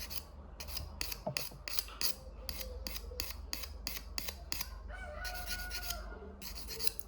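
Small abrasive sharpening stone rasping across the steel prongs of a pole-spear paralyzer tip, in quick short strokes about three a second, then two longer strokes near the end. A faint drawn-out animal call sounds about five seconds in.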